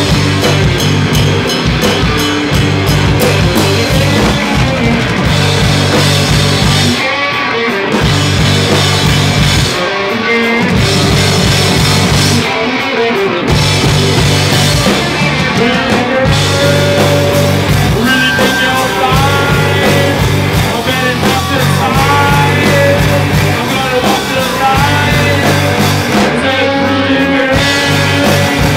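Live punk rock band playing loud electric guitar and drum kit with cymbals. The drums and cymbals stop for a moment several times in stop-start breaks while the guitar carries on.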